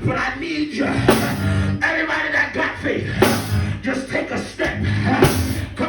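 Live gospel praise-break music in a church: a drum kit playing a fast, driving beat with cymbal crashes about every two seconds, over band instruments.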